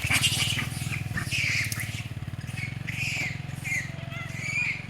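An engine idling with a steady rapid pulse, with short high chirping animal calls over it, more of them in the second half.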